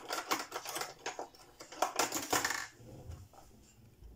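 Metal table knife scraping and clinking against a glass jar while digging out solid white coconut oil. A quick run of clicks and scrapes dies down about two-thirds of the way through.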